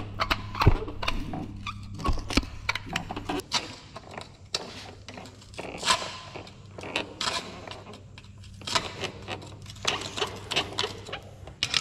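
Hand tools clicking, knocking and scraping against rusty bolts and fittings under a truck's frame: a quick, irregular string of short metal clinks. A steady low hum is strong at first and fades after about three seconds.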